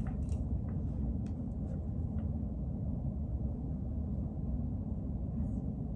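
Steady low background rumble, with a few faint light clicks and rustles in the first couple of seconds.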